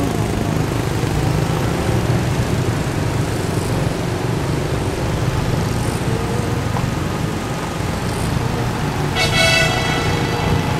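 Steady engine and road noise of a moving car heard from inside it, with one short horn toot near the end.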